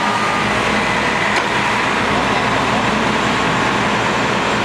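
Diesel engine of a Mack grapple-claw truck running steadily at close range.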